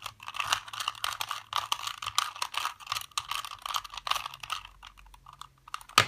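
A 2x2x2 Rubik's cube being turned fast through a corner-orientation algorithm: a rapid run of plastic clicks and rattles as the layers turn. The clicking thins out after about four and a half seconds, and one sharper click comes right at the end as the last layer is finished.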